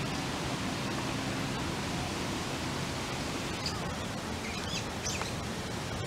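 Steady outdoor background noise, an even hiss with no clear source, with a few short, faint, high bird chirps from about three and a half to five seconds in.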